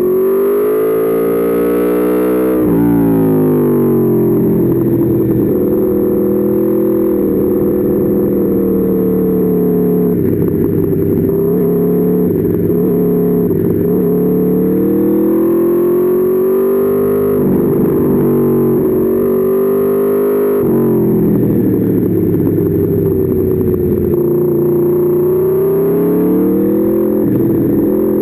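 Aprilia Tuono V4's V4 engine heard onboard, its revs rising and falling repeatedly as the bike accelerates and slows, with a sudden drop in pitch about 3 s in and again about 21 s in.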